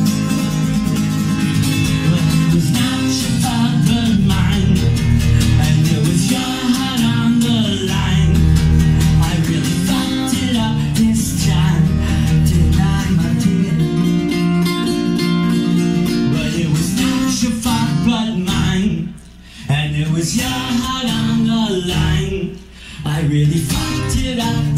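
Acoustic guitar strummed in a fast, steady rhythm, with a man's voice singing along. The strumming breaks off briefly twice near the end.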